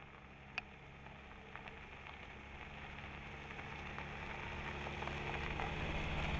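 Jeep Renegade compact SUV approaching on a gravel road: a low engine hum and the crackle of tyres over gravel, growing steadily louder, with a few small stone ticks.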